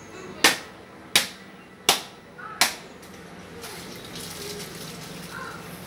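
Four sharp knocks about 0.7 s apart, struck at a bicycle rear hub as a 6000 ball bearing and its fittings are seated, followed by a steady rushing noise.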